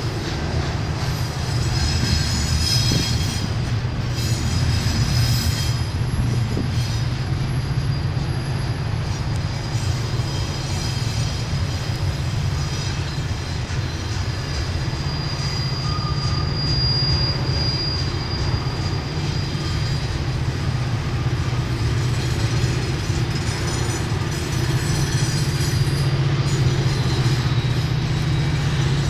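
Double-stack intermodal freight cars rolling past: a steady low rumble of wheels on rail, with high-pitched wheel squeal coming and going as the wheel flanges grind through the curve.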